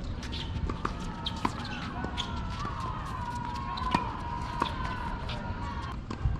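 Tennis ball impacts: a string of sharp, irregular knocks over a steady low rumble. A faint wailing tone rises and falls through the middle.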